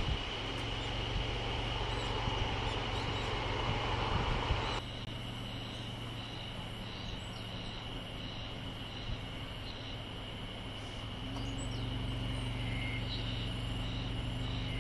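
Rural outdoor ambience: low rumble under a steady high-pitched drone. About five seconds in it cuts to a slightly quieter scene with a short high call repeated about twice a second.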